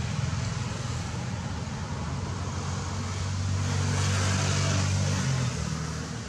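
A motor vehicle's engine running nearby, with a steady low hum. It grows louder with more road noise about halfway through, then fades near the end as it passes.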